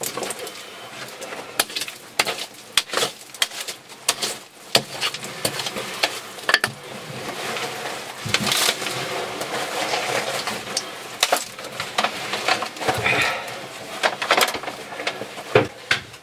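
Clay and loose stones being scraped up and loaded into a metal bucket: irregular clinks and knocks of rock against metal over scraping.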